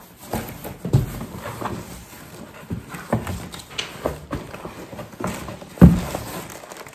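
Cardboard shipping box being opened and unpacked by hand: irregular knocks and rustling of the flaps and contents, with the loudest thump about six seconds in.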